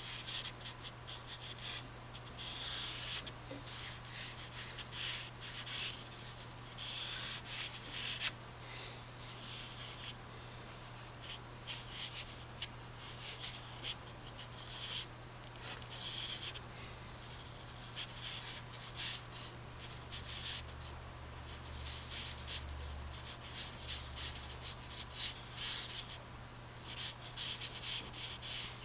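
A drawing stick scratching and rubbing across sketch paper in quick irregular strokes, some short and some drawn out for a second or more, as a figure drawing is sketched. A steady low hum sits underneath.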